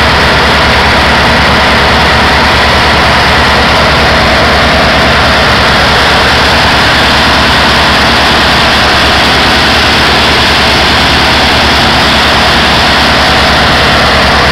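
Tugboat's diesel engine running hard and steady under load as it pulls a laden tanker on a towline, with the churn of its propeller wash.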